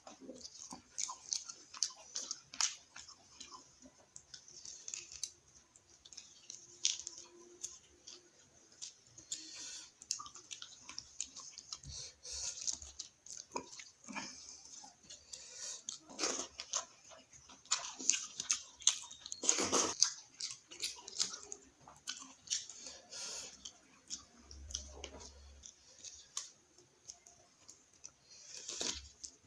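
A person chewing and eating a meal of rice, dal and fried onion, with many irregular short mouth smacks and clicks close to the microphone.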